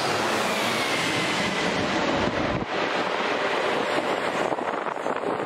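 Jet airliner on short final approach, its engines a steady rushing roar with a faint falling whine in the first couple of seconds, turning crackly toward the end.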